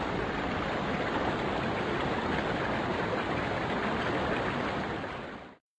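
Running water of a stream, a steady rushing that fades out near the end.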